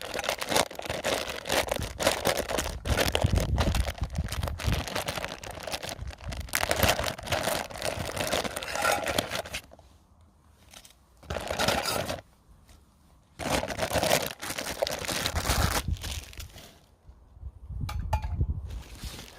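Gusty wind buffeting the microphone: crinkly, crackling rushes with a low rumble under the strongest gusts, broken by three short lulls.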